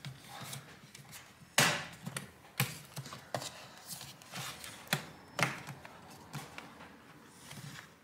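Plastic snap-fit clips of a Lenovo ThinkPad T480's bottom cover clicking and snapping as the cover is worked loose by hand: half a dozen separate sharp clicks, the loudest about a second and a half in.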